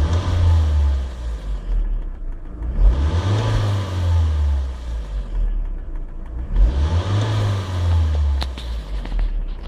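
Volvo S40 2.0T turbocharged engine revved three times, its pitch rising and falling each time, with a strange hissing noise over the revs. The owner traces the noise to the turbo, starting as it comes on boost at about 1800 rpm, and wonders whether the turbo is broken.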